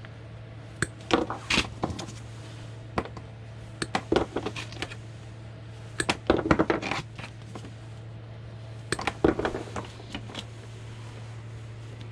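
Rope-light scraps clattering and knocking as they are handled and dropped, in irregular bursts of sharp clicks and knocks, over a low steady hum.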